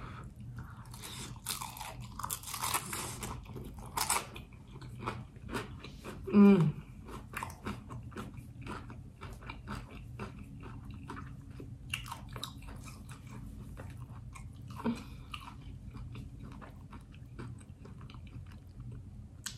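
Close-up crunching bites and chewing of a crispy fried chicken pot pie egg roll. The crunches are busiest in the first few seconds, then give way to softer, sparser chewing.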